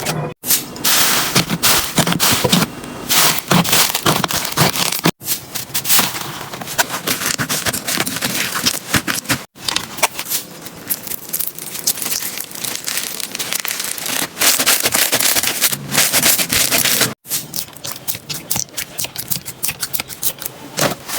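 Slime being squeezed, poked and stretched by hand, making dense crackling and popping. The sound is cut off briefly four times, as one short clip gives way to the next.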